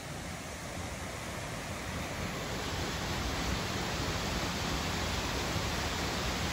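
Small waterfall pouring over a rock ledge into a forest stream: a steady rushing of water that grows a little louder about two seconds in.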